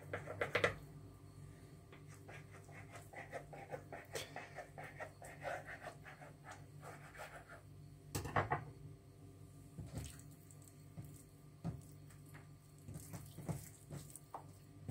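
Faint handling sounds of hands lifting and folding back pieces of a dough sheet coated in oily poppy-seed paste, with scattered light clicks and taps over a steady low hum.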